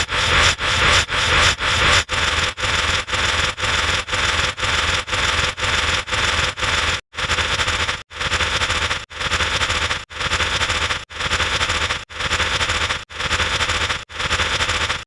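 Sound effect of harsh static-like noise repeated over and over in a strict rhythm, about two short bursts a second. After a brief dropout about seven seconds in, it turns to longer bursts about once a second.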